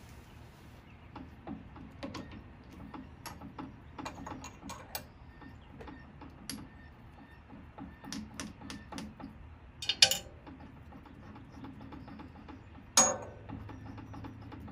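Drill press chuck being worked by hand to fit a half-inch drill bit: scattered light metallic clicks and ticks, with two sharper metal knocks about ten and thirteen seconds in. A low steady hum starts just after the second knock.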